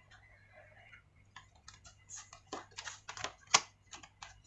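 An irregular run of sharp clicks and snaps, the loudest about three and a half seconds in: the retaining clips of an Acer Swift 3 laptop's bottom cover popping loose as the cover is pried off.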